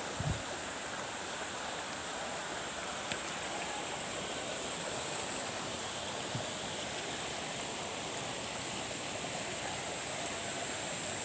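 Steady rush of flowing water, with a thin, steady high-pitched whine over it and a few faint taps.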